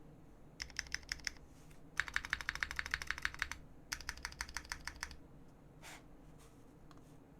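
Fast typing on a custom mechanical keyboard with lubed AEBoards Naevy switches on an aluminium plate in a RAMA Thermal case, with GMK keycaps: three short runs of quick keystrokes with brief pauses between, the middle run the longest and loudest, then it stops about five seconds in.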